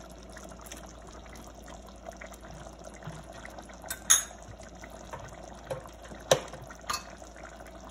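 Coconut-milk chicken stew simmering in a stainless steel pot, a steady bubbling, with three sharp clicks at about four, six and seven seconds in.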